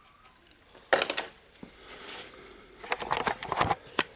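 Small metal ratchet parts clicking and clattering as the ratchet head is worked back together: a short metallic clatter about a second in, then a quick irregular run of clicks near the end.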